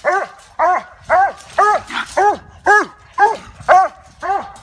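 Treeing Walker coonhound barking at a caged live raccoon: a steady run of short, arching barks, about two a second.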